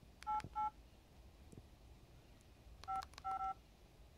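Keypad tones of a Samsung SCH-U320 flip phone as keys are pressed to type a text message by multi-tap: two short dual-tone beeps about a third of a second in (the 8 key pressed twice for 'u'), then a quick cluster of beeps from the 5 key near three seconds in (tapped repeatedly for 'l').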